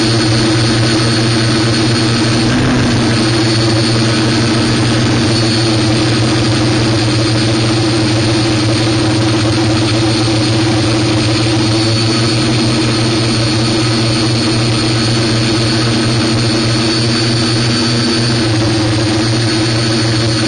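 Multirotor drone's electric motors and propellers humming steadily, with small shifts in pitch as the motor speeds adjust.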